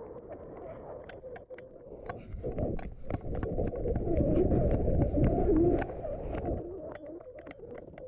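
A dove cooing, louder in the middle stretch, with scattered sharp ticks and crackles.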